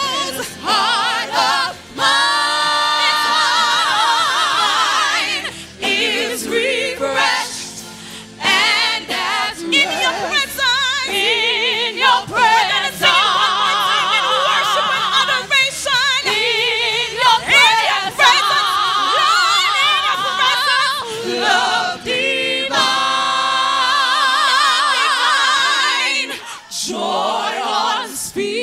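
Gospel vocal group singing a worship song live: a lead voice with wide vibrato over the group's harmonies.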